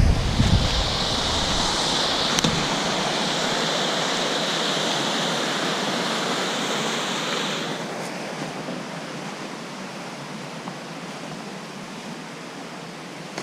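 Small waterfall rushing steadily, an even hiss of falling and splashing water. About eight seconds in, the brightest hiss stops and the sound becomes quieter and softer.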